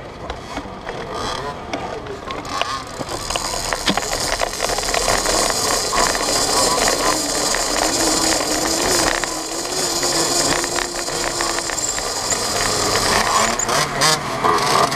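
Mini moto rolling slowly over rough tarmac, its frame and on-board camera mount rattling and clicking continuously.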